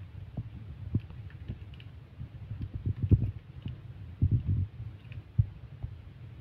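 Irregular low thuds and light clicks of close-up handling as small plastic bags of liquid ice cream mix are tied off and picked up, with a cluster of louder knocks about three and four seconds in.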